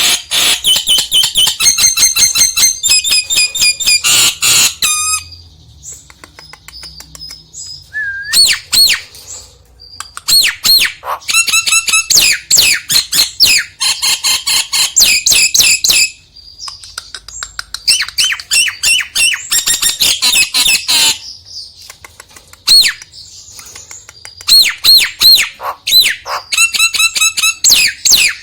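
Nias hill myna calling: bursts of loud, rapidly repeated whistles and squawks, broken by short pauses.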